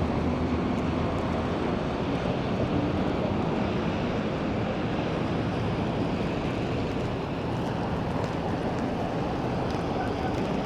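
Steady roar of a city street in a snowstorm: traffic and wind blending into an even noise.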